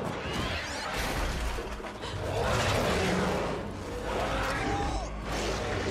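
A dense action-scene sound mix: shouting and screaming voices and gliding shrieks over crashing noise, a steady low rumble and music.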